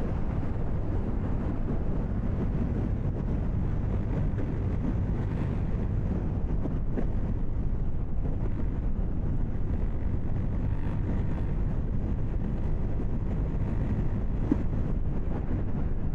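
KTM 790 Duke's 799 cc parallel-twin engine running at steady revs, with wind noise on the microphone.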